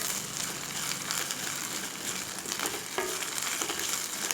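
Ginger-garlic paste and shallots sizzling in hot sesame oil while being sautéed, the steady sizzle broken by faint clicks of the spatula stirring in the pan.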